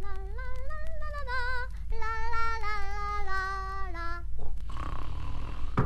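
A female voice singing a short, simple melody in held notes that step up and down, ending about four seconds in.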